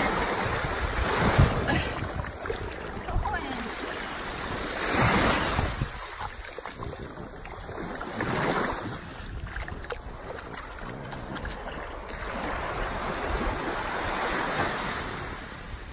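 Small waves washing up over the shallows and running back, the surf noise swelling and fading four times, with wind rumbling on the microphone.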